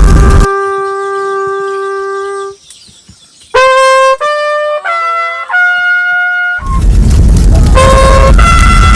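Horns blown as instruments of worship: a trumpet-like horn holds one long note, then after a short pause plays a few notes stepping between pitches, and a loud din of many horns sounding together starts again about two-thirds of the way in.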